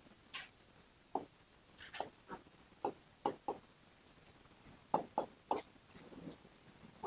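Faint, irregular short taps and strokes of writing on a classroom board, about a dozen in all with a pause in the middle.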